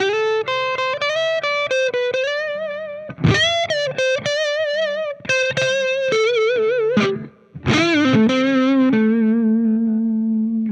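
Gibson Les Paul Custom electric guitar playing a single-note lead line: sustained notes with wide vibrato and string bends, a short break about seven seconds in, then a long held low note that bends down at the end.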